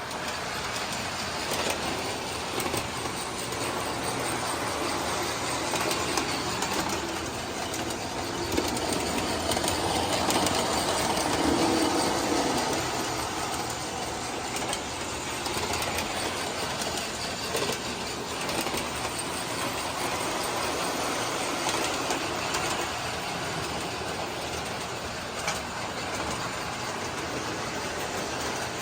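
Model trains running on their track: a steady rolling rattle of wheels with light clicking over the rail joints, growing a little louder around the middle.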